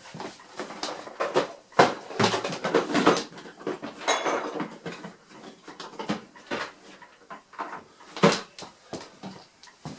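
Tools and hard objects being rummaged through and handled: irregular knocks and clatters, with the loudest near the start and again towards the end, consistent with searching for a bigger screwdriver.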